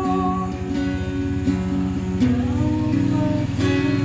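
Acoustic guitar strummed in a steady rhythm, changing chord about two seconds in, while a man's voice holds drawn-out sung notes between lyric lines.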